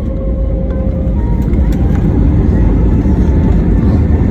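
Airbus A320neo jet engines at takeoff power heard from inside the cabin, with a heavy low rumble that grows slightly louder through the takeoff.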